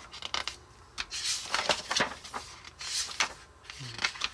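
Magazine pages being flipped and handled: irregular bursts of paper rustling with a few light taps.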